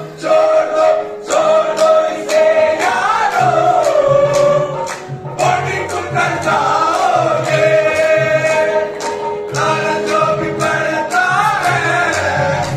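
Qawwali sung by a group of men together, with rhythmic handclaps keeping the beat.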